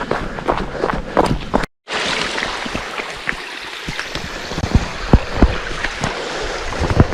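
Running footsteps on a trail; the sound cuts out briefly about two seconds in, then a steady rush of flowing stream water, with footfalls continuing over it.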